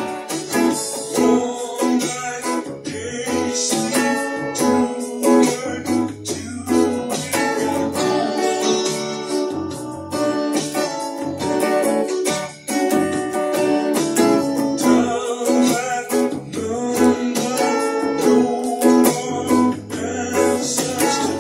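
Music led by a strummed Telecaster-style electric guitar, with other instruments playing along behind it.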